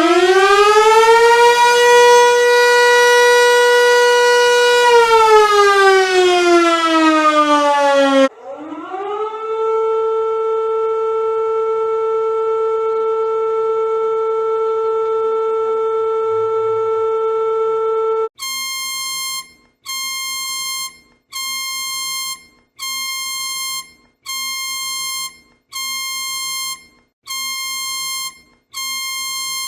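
Emergency alert siren tones. A siren winds up, holds its pitch for a few seconds and winds down. A steady alarm tone follows for about ten seconds, then a run of about eight evenly spaced high beeps, roughly one every second and a half.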